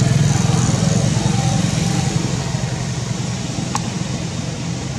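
An engine running steadily with a low hum, easing off slightly, and a single sharp click nearly four seconds in.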